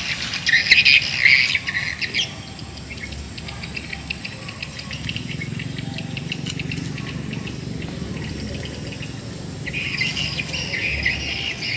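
Birds chirping and calling in quick chattering runs during the first two seconds and again near the end, over a steady high-pitched insect drone.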